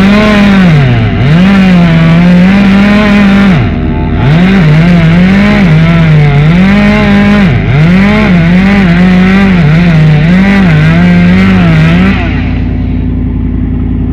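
Chainsaw running at high revs while cutting through a pine trunk, its pitch dipping and recovering over and over as the chain bogs down in the wood. About twelve seconds in the throttle is released and the loud running stops, leaving a lower steady hum.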